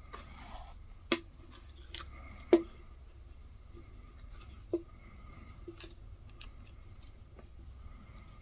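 Hand-stitching a leather sheath: thread rustling as it is drawn through the stitch holes, with a few sharp clicks from the needles and clips, the loudest about two and a half seconds in.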